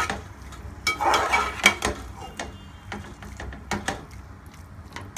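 A spoon stirring potato-tomato masala in a pan, with scattered clinks and knocks of the spoon against the metal and a short scrape about a second in.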